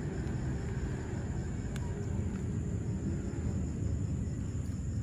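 Steady low outdoor rumble, with a constant high-pitched insect drone above it and a single faint click about two seconds in.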